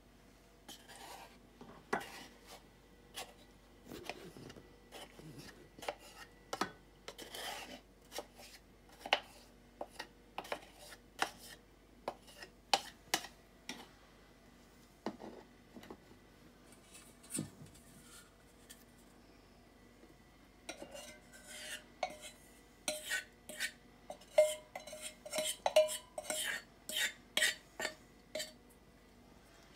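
A plastic spoon scraping and tapping in a fine strainer as oat milk is worked through it, a steady string of short clicks and scrapes. Near the end a stainless steel bowl knocks and clinks several times with a short metallic ring as it is handled and tipped to pour.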